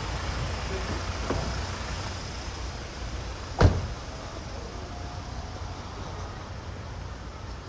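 Busy city street ambience with a steady low rumble of traffic, and a single sharp knock about three and a half seconds in.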